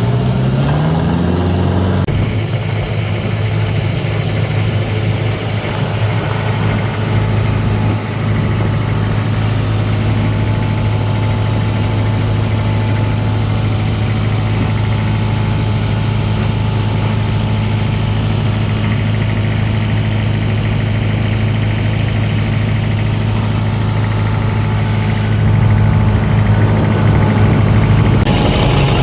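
Tourist boat's engine revving up over the first couple of seconds, then running at a steady pitch under way, a little louder near the end.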